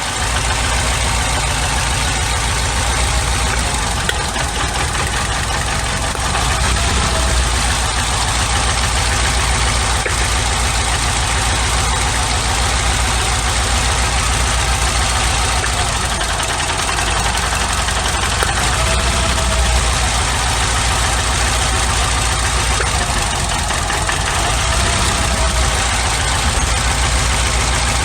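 A 1991 Nissan Sentra's GA16DE four-cylinder engine idling with a steady miss on cylinder 2. The owner takes the miss for a dead fuel injector, since new spark plug wires did not cure it.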